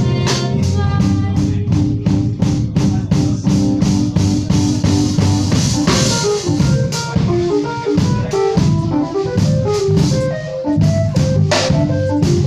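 Live jazz quartet playing an instrumental passage: keyboard over electric bass and a drum kit keeping a steady beat.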